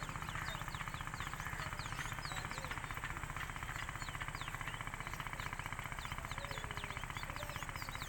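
A small engine running steadily nearby with a fast, even thudding pulse, and birds chirping in short high calls over it.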